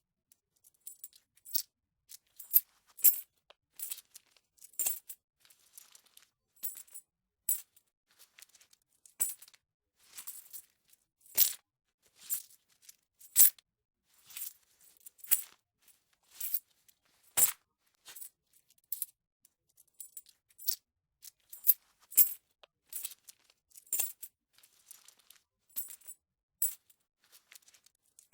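Metal coins being handled, jingling and clanking in irregular clusters of bright, high clinks with short ringing tails, one to three bursts a second with brief pauses between.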